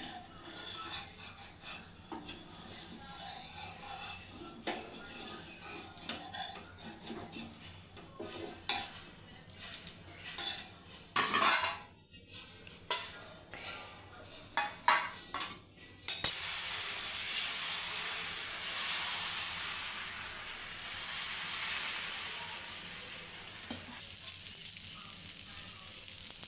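A metal spatula scrapes and taps on a dosa pan, with several sharp clinks near the middle as a cooked millet dosa is lifted onto a steel plate. About 16 s in this gives way suddenly to a steady sizzle of millet dosa batter frying in oil on the hot pan, the loudest sound.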